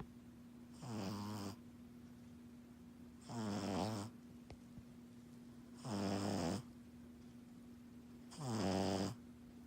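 Pug puppy snoring in its sleep: four snores, each a little under a second long, coming about every two and a half seconds.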